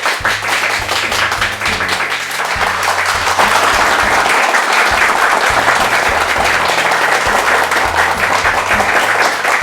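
Applause, dense steady clapping, over background music with plucked guitar notes.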